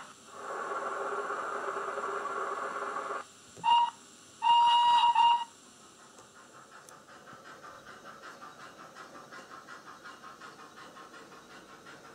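Steam locomotive sounds from a Loksound Micro V4.0 DCC sound decoder, loaded with Olivia's Trains N Class sound project, playing through a tiny sugar cube speaker in a Graham Farish N gauge N Class model. First comes a hiss of steam lasting about three seconds. Then a short whistle toot and a longer, louder whistle, followed by a faint, quick, steady chuffing.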